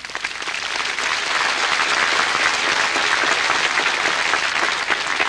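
Large crowd applauding, swelling over the first second and then holding steady.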